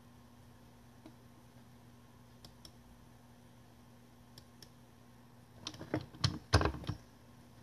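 Fingers tapping and clicking on a device close to the microphone: a few faint isolated clicks, then a quick cluster of louder taps and knocks about six seconds in, over a faint steady low hum.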